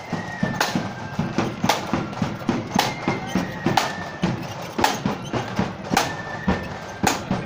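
Marching band's snare and bass drums beating a steady marching rhythm, a sharp loud stroke about once a second with lighter beats between.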